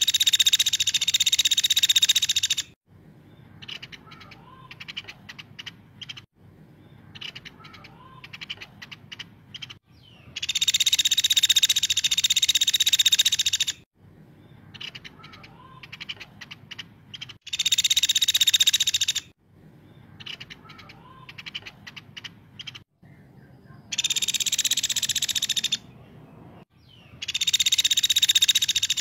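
Small woodpecker (caladi) calling repeatedly with loud, harsh buzzing trills of about two to three seconds each, five times. Quieter short ticks and faint chirps fill the gaps between them.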